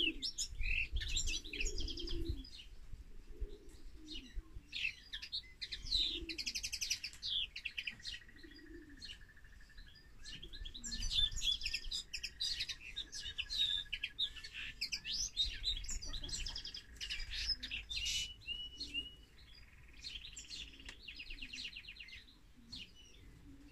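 Caged finches, a European goldfinch and a common linnet, singing: a long run of quick twittering phrases broken by short pauses, with rapid buzzy trills around a third of the way in and again near the end.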